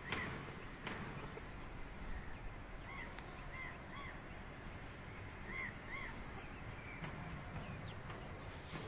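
Silkie chickens calling softly: a handful of short chirps in the middle stretch, some in quick pairs, over a faint outdoor background.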